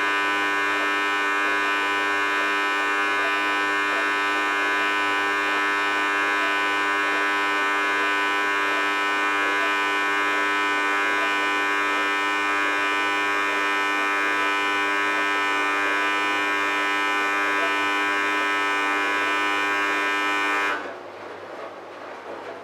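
Thor WP5G benchtop dishwasher making a loud, steady buzz that cuts off suddenly near the end, leaving a much quieter rushing sound. The buzz is an abnormal noise the machine makes for exactly three minutes on every run, a fault its owner cannot identify.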